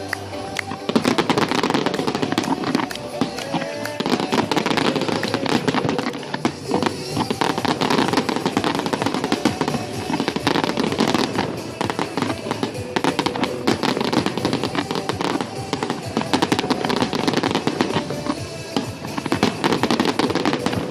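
Fireworks going off in rapid succession, a dense stream of crackles and bangs, with music playing underneath.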